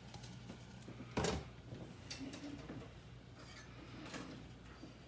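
A utensil scraping and knocking in a bowl as breadcrumbs are stirred in, with one louder knock about a second in, over a faint steady hum.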